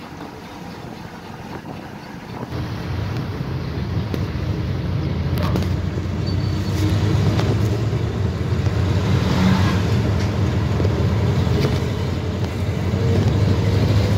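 Jeepney engine and road noise heard from inside the open passenger cabin: a steady low rumble that grows louder about two and a half seconds in.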